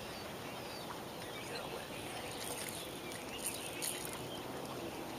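Steady outdoor background noise with a few faint clicks and rustles around the middle, and faint short high chirps.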